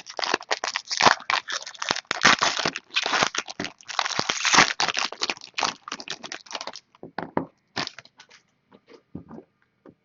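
Plastic wrapping on a trading-card box or pack being crinkled and torn open, a dense crackle for about seven seconds, then a few scattered crackles as the handling stops.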